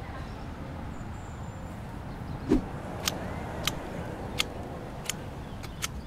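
Garden pruning shears snipping hedge branches: sharp, short clicks about every two-thirds of a second, six in all, starting about three seconds in, over a steady low outdoor hum. A single dull thump comes just before the snipping starts.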